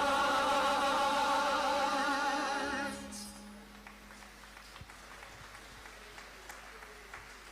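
Gospel song ending on a long sung note with vibrato, which stops about three seconds in, leaving a quiet stretch with a few faint clicks.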